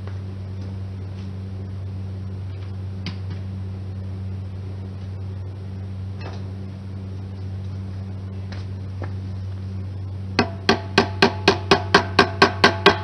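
Steady low electrical hum of a welding machine's transformer, with a few faint clicks. Near the end, rhythmic plucked background music starts, about four notes a second.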